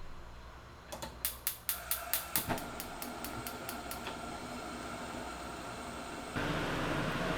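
A kitchen appliance being switched on: a quick run of about ten clicks, as of a dial being turned, then a faint steady hum, and about six seconds in a louder steady fan noise starts suddenly.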